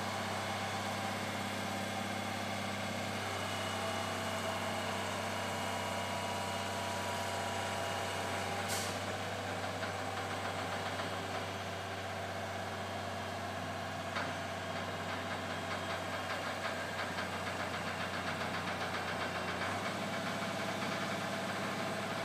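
Crane's engine running steadily as it works the hoist, its tone shifting slightly a few seconds in and again near the end. A couple of sharp clicks, near the middle and a few seconds later.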